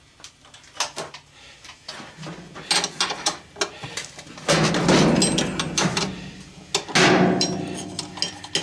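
Metal hand tools clanking and rattling against each other, sharp clicks at first, then two longer bursts of clattering, as tools are rummaged through.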